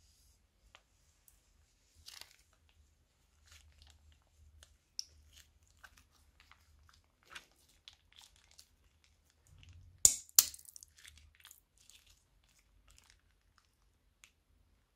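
Plastic piping bag being squeezed, crinkling as thick slime squishes out of its tip, with scattered small crackles. Two loud, sharp snaps about ten seconds in, half a second apart.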